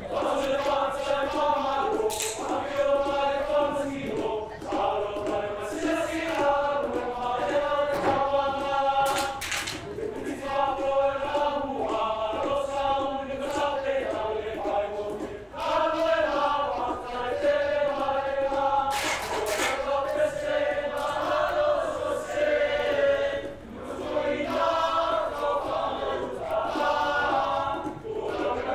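Seated group of young men singing a Samoan song together in phrases, with a few sharp percussive hits about 2, 9 and 19 seconds in.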